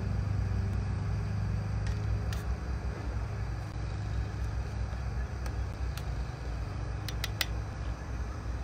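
A spoon stirring in a small metal camp pot gives a few light clicks, with a quick cluster near the end, over a steady low rumble.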